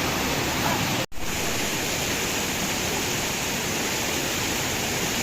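Heavy rain falling, a loud, steady hiss. It cuts out for a split second about a second in, then resumes unchanged.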